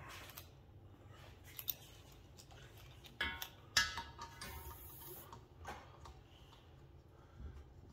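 Scattered clicks and metallic clinks as a TruBlu vacuum-rated hose's brass fitting is handled and screwed onto a refrigerant reclaim tank's valve, with one ringing clink about three seconds in and a brief hiss about five seconds in.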